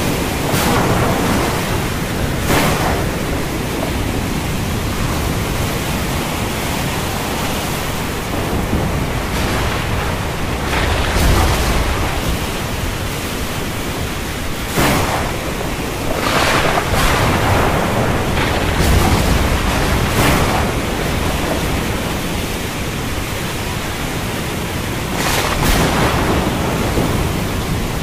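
Thunderstorm: a loud, steady rush of rain and wind, broken by about seven sudden sharp thunder cracks, with deep low rumbling around the middle.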